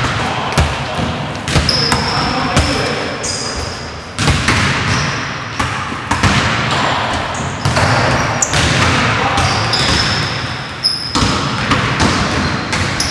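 Basketballs bouncing on a hardwood gym floor as players dribble and run a layup drill, the bounces echoing in the large gym.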